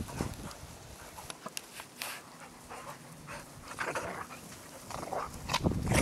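Giant Schnauzer playing in deep snow: dog breathing sounds and scattered short scuffs as it plunges and burrows through the snow.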